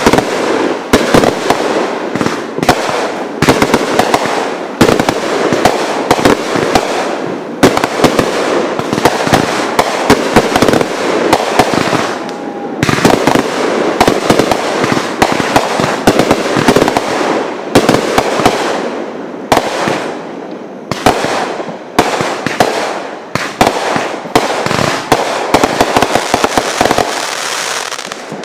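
Aerial fireworks going off in a rapid barrage: sharp bangs several a second with crackling between them. They thin out and stop just before the end.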